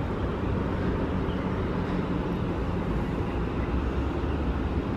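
Steady low outdoor rumble with a faint hum under it.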